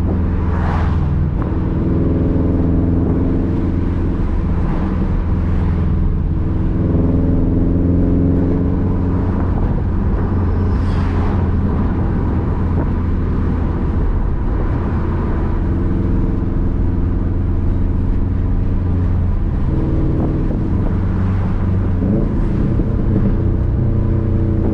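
Subaru WRX STI's turbocharged flat-four rumbling through its exhaust while driving, its pitch rising and falling every few seconds as the revs change, with a brief hiss about eleven seconds in.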